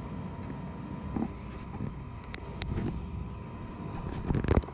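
RC car running with a steady low rumble, two sharp clicks about two and a half seconds in and a quick run of louder knocks near the end.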